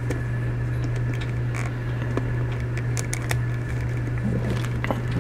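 Light plastic clicks and handling noises as a spear accessory is fitted into the hand of a 1/6-scale action figure, a few sharp ticks spread through, over a steady low hum.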